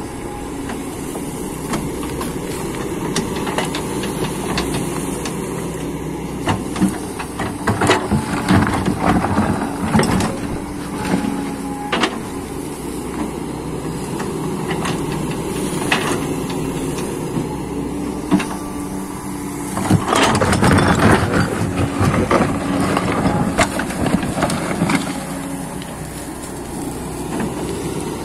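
Excavator's diesel engine running steadily under digging load, with knocks and scraping of the bucket on soil and stones; the noise is loudest and roughest about twenty seconds in.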